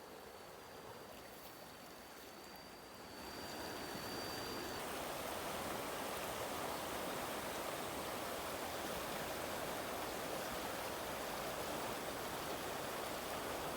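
Water rushing steadily, quieter for the first three seconds and then louder; a faint, thin, high steady whine runs through the first few seconds.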